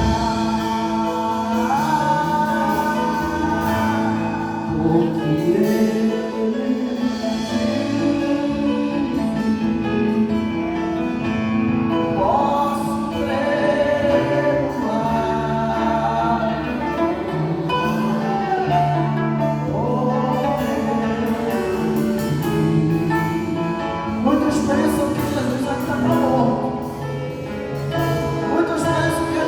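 Gospel band playing a praise song, with sung vocals over a steady instrumental accompaniment.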